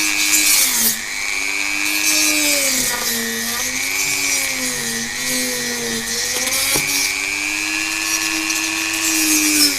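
Dremel-type rotary tool with a cutting disc running and cutting into a water pump's casing. Its motor pitch dips as the disc bogs under load, about a second in and again through the middle, then picks back up.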